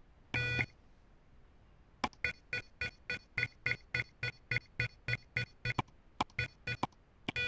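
Arduino LED clock's alarm buzzer beeping as its date is set: one longer beep near the start, then a run of about twenty short beeps, roughly four a second, while the day value is stepped up with the adjust button, and another longer beep at the end as the setting is accepted.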